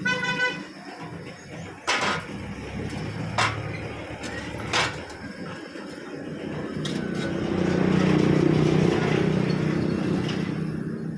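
A steady machine hum with a brief ringing tone at the start. Sharp knocks come about every second and a half early on, and the hum swells about two-thirds of the way through.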